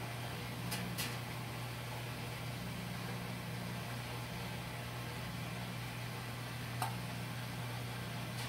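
Metal jar lifter clinking against glass canning jars as jars are lowered into a graniteware water-bath canner: two light clinks about a second in and one more near the end. A steady low hum runs underneath.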